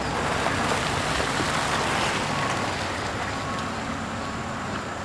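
Holden Commodore station wagon driving slowly past and pulling into a parking bay: tyre and engine noise that swells as it passes about two seconds in, then eases off as it stops.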